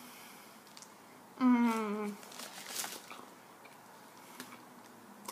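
A woman chewing a mouthful of a soft tortilla chicken Caesar wrap. About a second and a half in she gives a short hummed 'mmm' that falls in pitch, followed by wet smacking chewing noises.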